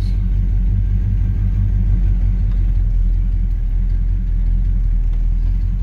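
Inside the cab, a 1972 GMC Sprint's engine runs at a steady low rumble as the car drives slowly in low gear on a freshly rebuilt Turbo 350 automatic transmission.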